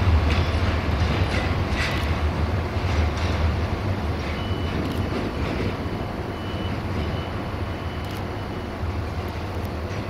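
Freight train of open wagons rolling away over rail joints, with a low rumble, occasional wheel knocks and a faint on-and-off wheel squeal in the middle, slowly fading.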